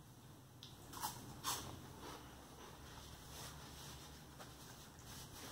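A person chewing crunchy puffed cheese curls, with two short, sharp crunches about a second and a second and a half in. Near the end come faint rustles of a paper napkin as fingers are wiped.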